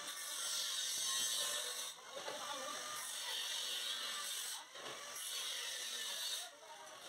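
Handheld angle grinder with an abrasive disc cutting into stainless steel square tubing: a harsh, high-pitched hiss that dips briefly twice as the disc lets up and bites again, and eases off near the end.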